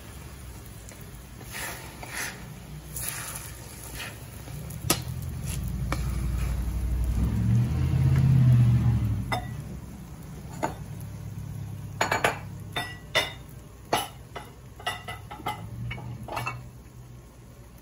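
Metal slotted skimmer scraping and tapping in a frying pan of eggs setting over fried potato cubes, with a faint sizzle; the clicks come thickest in the second half. A low hum swells and fades around the middle.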